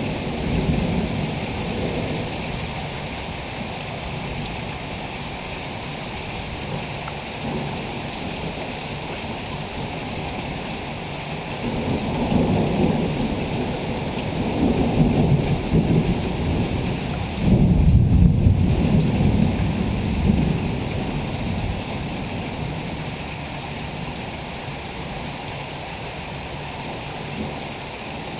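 Thunderstorm: steady rain with rolling thunder. Rumbles swell a few times past the middle, and the loudest peal starts suddenly a little after halfway and rolls on for a few seconds before fading back into the rain.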